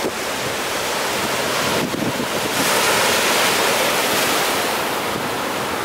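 Ocean surf washing on the beach, with wind buffeting the microphone; the rush of surf swells louder about halfway through, then eases off.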